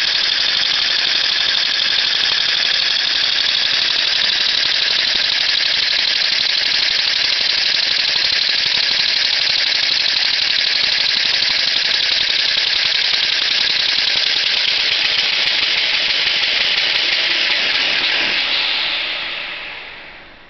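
Vacuum cleaner running steadily, a high rushing whine, its suction drawing air through the hose to drive a model vacuum air engine. Over the last couple of seconds the whine winds down and fades away.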